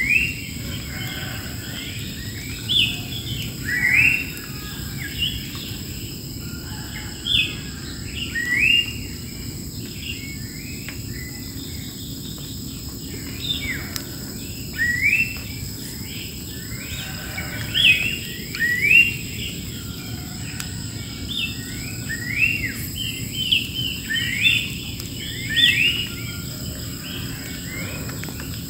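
Wild birds calling again and again, short rising notes, over a steady high insect drone.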